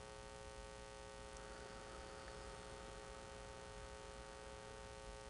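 Faint, steady electrical hum: a buzz of several unchanging tones over low background hiss, typical of mains hum in the recording.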